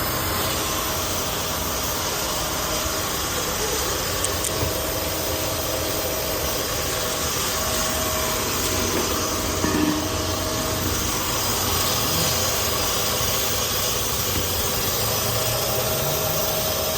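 Car engine idling steadily, a continuous even running noise with a faint hum that comes and goes. There is a brief knock about ten seconds in.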